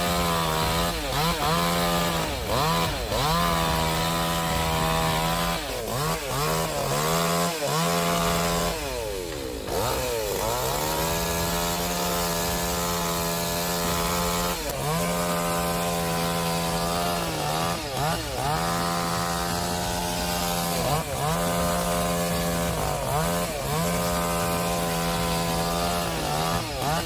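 Chainsaw running at high revs, its pitch dropping and climbing back over and over as the throttle is worked and the chain bites, with one longer dip about nine seconds in.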